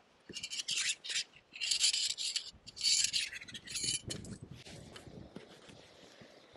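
Rubbing and scraping of hands handling a camera on its tripod, in four or five short bursts over the first four seconds.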